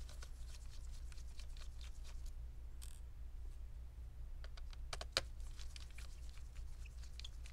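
Hand screwdriver backing out small screws from a laptop hinge: light scattered clicks and scrapes of the bit in the screw heads, with a sharper click about five seconds in, over a steady low hum.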